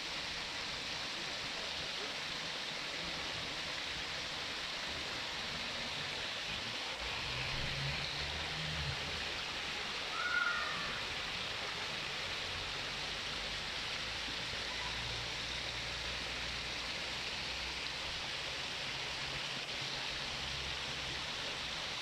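Steady splashing of water falling into a koi pond from a fountain or water inlet, briefly a little louder about ten seconds in.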